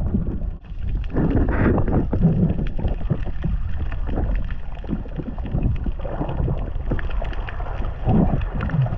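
Muffled underwater rumble and rush of water moving over an action camera's housing as a diver swims, with occasional dull knocks.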